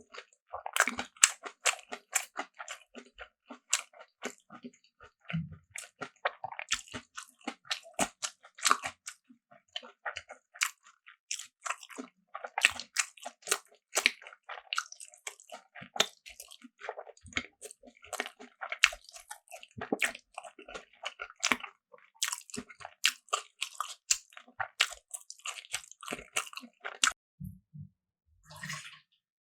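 Close-miked eating sounds: a person biting, chewing and crunching food in quick, irregular wet clicks. The eating stops about 27 seconds in, followed by a couple of soft knocks and a brief rustle near the end.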